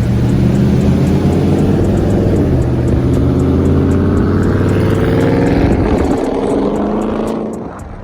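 Dodge Charger Scat Pack's 6.4-litre HEMI V8 accelerating, its engine note climbing steadily in pitch for several seconds before the sound falls away near the end.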